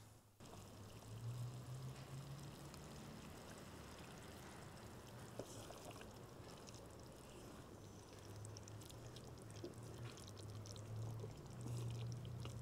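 Liquid sloshing in a steaming pot of celery and lamb stew as it is stirred with a wooden spatula. It makes a steady, faint watery sound, with small clicks now and then.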